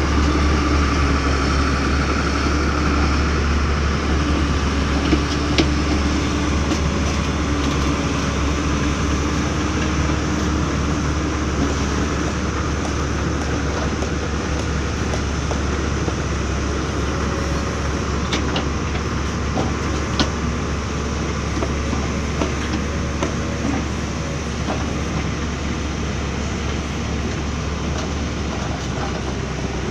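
Backhoe loader's diesel engine running steadily under working load, with a low drone and a pitch that wavers in the first half, and a few short knocks as the machine works.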